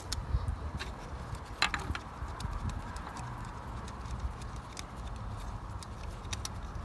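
A few scattered metallic clicks and knocks of a hand wrench working the exhaust manifold bolts on a GM 2.0 L LNF engine, over a steady low rumble.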